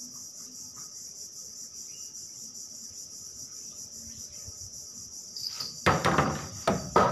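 A steady, high-pitched chorus of insects drones on. Near the end come a few loud, sudden knocks and rustles, close by.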